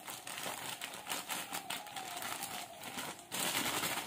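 Plastic packet of fine salt crinkling and rustling as the salt is poured out onto the pickle mix, with a louder hiss of pouring about three seconds in.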